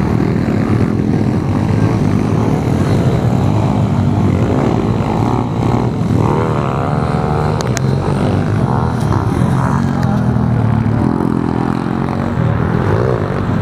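Several pit bike engines, small single-cylinder four-strokes, running hard and revving up and down as the bikes race around a dirt track, their pitch rising and falling as they pass.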